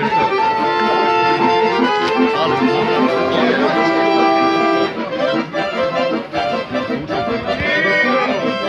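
Accordion-led folk music playing, with held chords over a steady beat.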